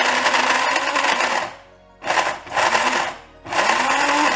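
Small electric grain and coffee mill grinding dry ingredients (almond flakes, oats, seeds) with a high whirring. It runs for about a second and a half, stops, then is pulsed in three short bursts, each with a rising whine as the motor spins up.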